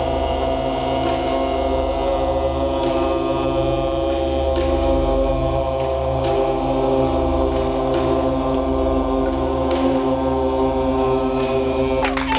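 Chanting in a long, steady drone of held notes. Applause and cheering break out near the end.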